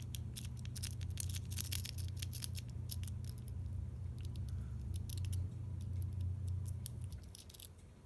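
Homemade paperclip rake pick being worked rapidly back and forth across the pin stack of a Master Lock 141D padlock held under a tension wrench: a fast, irregular run of light metallic clicks and scrapes that stops shortly before the end. A steady low hum underneath cuts out about seven seconds in.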